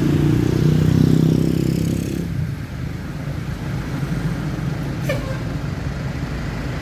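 Large bus engine running hard as the bus pulls past, strongest for the first two seconds and then settling into a steadier, lower engine rumble. A brief faint squeak about five seconds in.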